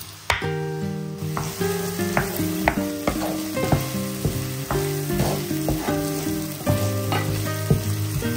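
Diced onion sizzling in olive oil in a nonstick frying pan, stirred with a wooden spoon that scrapes and knocks against the pan two or three times a second.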